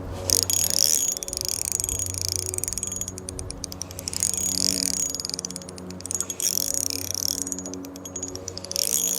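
Spinning reel's drag clicking in fast runs as a fish pulls line, in several bursts a second or so apart, over a steady low hum.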